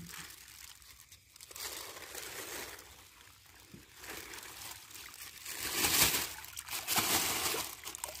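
A plastic bag crinkles as water pours and splashes out of it into a pond while the bag of young fish is emptied. The noise grows louder in the second half.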